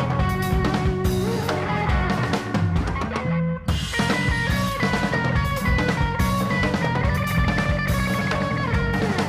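Background rock music with guitar and a drum kit, dropping out briefly a few seconds in before the beat comes back.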